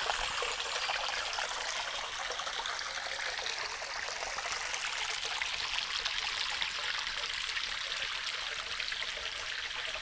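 Shallow stream trickling and babbling steadily over its bed, an even splashing hiss without a break.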